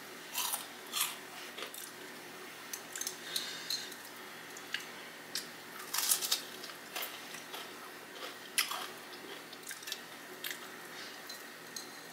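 Crunchy chewing of Flamin' Hot Cheeto-coated fried pickles: crisp bites and crunches in irregular clusters, with short pauses between them.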